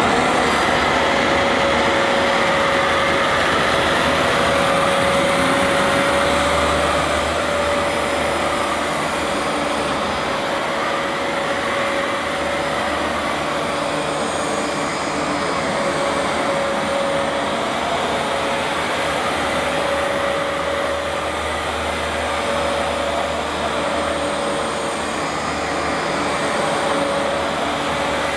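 Vax Platinum Power Max carpet washer's suction motor running, a noisy steady rush with a steady high whine over it.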